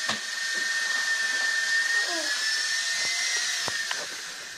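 Small electric toy remote-control helicopter's motor and rotor whining steadily at a high pitch, fading away near the end, with a few light knocks as it is handled.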